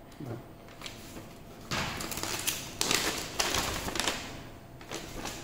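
Paper rustling and crackling as a printed instruction manual and a large folded glossy leaflet are handled and unfolded, loudest in the middle.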